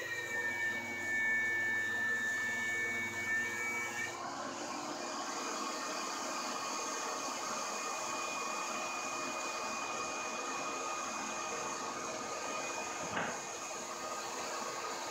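DeWalt DW735 thickness planer fitted with a segmented spiral cutter head with tungsten carbide inserts, planing a board. The whine drops in pitch as the cut takes load for about four seconds, then the planer runs on unloaded with a steady whine. A single short knock comes near the end.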